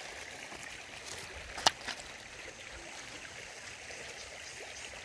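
Steady rush of running water, with one sharp click nearly two seconds in.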